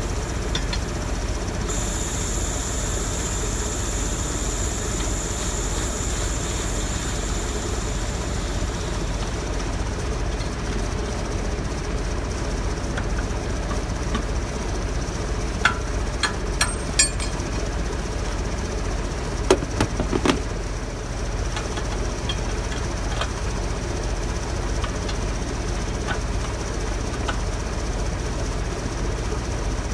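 Diesel engine idling steadily, with a high whine over it for the first several seconds. A few sharp metallic clinks and knocks come about halfway through.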